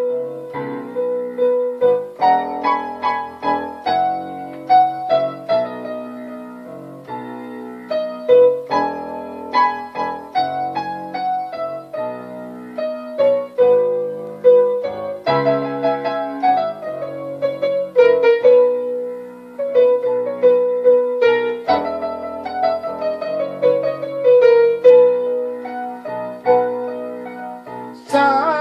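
Piano playing a slow hymn melody over held chords as an instrumental passage, each note struck clearly. Near the end a brighter sound comes in on top.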